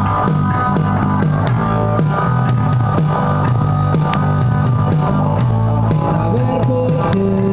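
Amateur band playing rock live in a room: electric guitar, electric bass and keyboard together, with a steady, repeating bass line.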